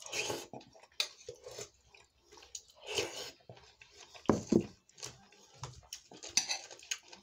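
Close-up chewing of a mouthful of fresh vegetable salad eaten from a spoon: irregular, wet mouth noises, with a louder one about four seconds in.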